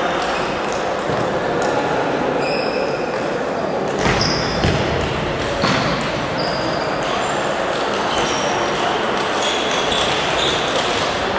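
Table tennis balls clicking off bats and tables, scattered irregular pings over a steady murmur of voices in a large hall. A louder knock and thump about four to five seconds in.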